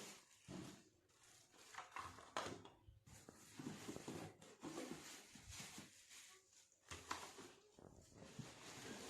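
Near silence with faint, irregular rustling and a few light knocks, as of objects being handled.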